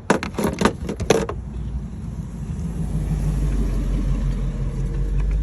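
A quick run of sharp clicks and knocks from a plastic reservoir being handled and shifted aside in a car's engine bay, then a steady low rumble that grows louder about three seconds in.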